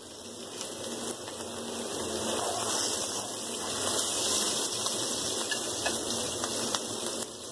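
T-bone steak sizzling as it browns in hot avocado oil in a nonstick frying pan. The sizzle grows louder over the first few seconds, then holds steady.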